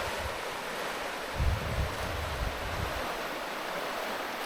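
Steady rushing of a mountain creek's flowing water. Low wind buffeting on the microphone from about a second and a half in to about three seconds in.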